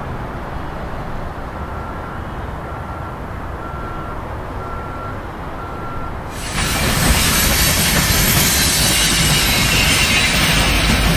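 Low rumble of trains moving through a rail yard, with five short, evenly spaced beeps. About six and a half seconds in, a freight train's cars are rolling past close by: a loud, steady rolling noise of steel wheels on rail with some hiss and squeal.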